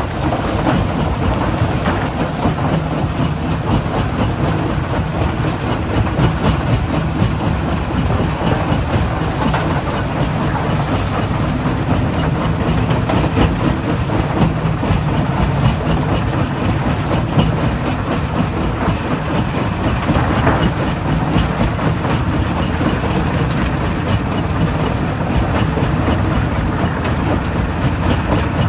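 Stone crusher plant machinery running continuously: a steady low drone with a constant clatter of rock.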